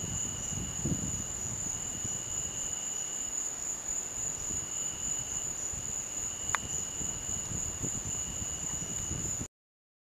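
Night insects trilling steadily in a high-pitched chorus over a low rumble, with one sharp click about two-thirds through; all sound cuts off suddenly near the end.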